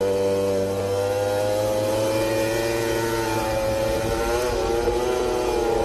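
MotoGP racing motorcycle engine running at high revs. Its pitch holds steady, rising slightly and dipping a couple of times.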